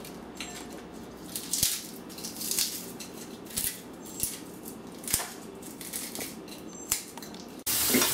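Crisp fried pork rind (chicharrón) and carnitas being broken apart by hand into a glass bowl: irregular crackling snaps and crunches. Near the end it cuts to a steady rush of running tap water.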